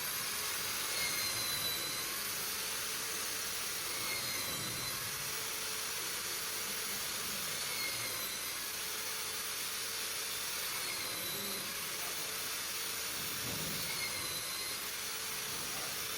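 Die-making jig saw machine running and cutting: a steady, high-pitched mechanical noise with a faint wavering whine that comes back every few seconds.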